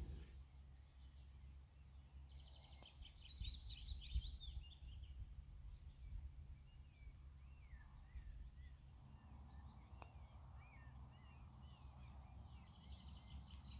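Faint songbirds singing in the surrounding forest: a descending trill of quick notes a couple of seconds in, scattered chirps after it, and another trill near the end, over a low steady rumble.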